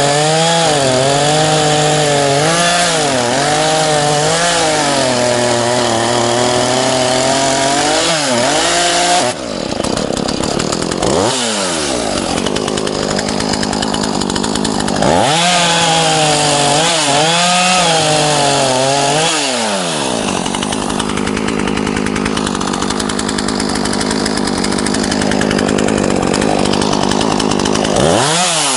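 ZimAni 450 two-stroke chainsaw cutting through a felled spruce log. The engine pitch rises and dips over and over as the chain bites into the wood, with steadier, rougher stretches between cuts.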